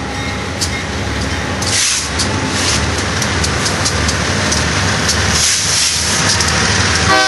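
BNSF diesel freight locomotives running toward and past, a steady low engine rumble under rising wheel-and-rail hiss with scattered clicks. The train horn starts to sound right at the end.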